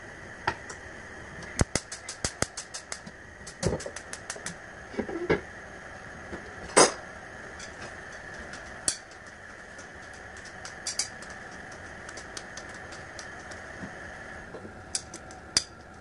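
Gas hob burner's spark igniter clicking in quick runs of ticks until the burner lights, with one louder short sound about seven seconds in and scattered single ticks afterwards.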